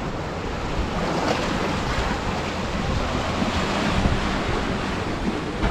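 Ocean surf washing in over the shoreline limestone rocks: a steady rushing noise with a low rumble, with wind buffeting the microphone.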